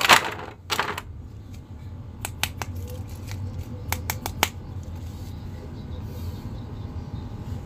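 Clear plastic packaging crackling and rustling, then a handful of sharp plastic clicks as toy action figures are handled in and lifted out of their plastic tray.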